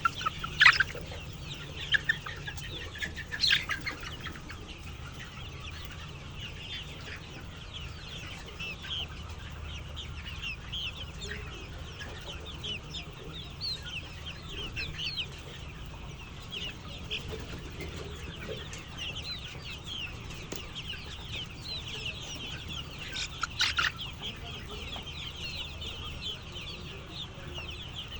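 A flock of chickens calling at once: a dense, continuous chatter of many short, high-pitched calls, with a few louder calls about a second in, around three seconds in, and again near the end. A low steady hum lies underneath.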